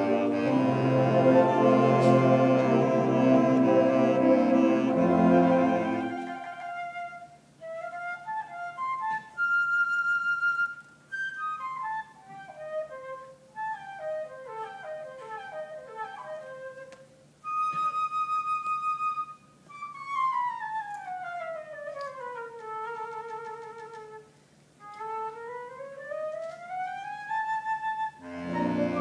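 A band plays for about six seconds, then a solo flute carries on alone with quick runs of notes, short held high notes and two long slides down and back up. The band comes back in at the very end.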